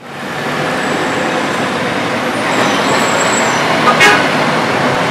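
Busy road traffic at a roundabout: a steady noise of car, minibus and bus engines and tyres, with a short vehicle horn toot about four seconds in.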